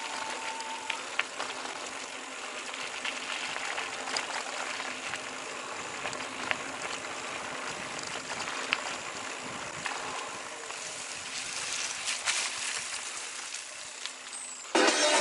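Steady rushing noise with a faint low hum and scattered sharp clicks. Music starts suddenly near the end.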